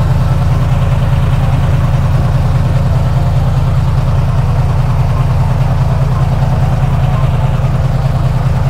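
Heavy diesel truck engine idling, loud and steady, with the knocking clatter of a big diesel.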